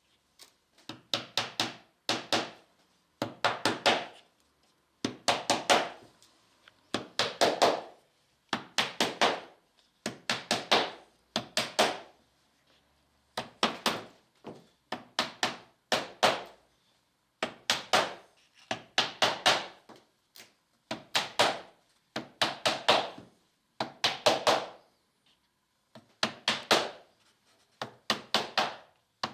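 A small hammer taps tiny nails into the wooden cap strips of a plywood aircraft wing rib held in a wooden jig. The strikes come in quick runs of several light taps, one run roughly every one and a half seconds.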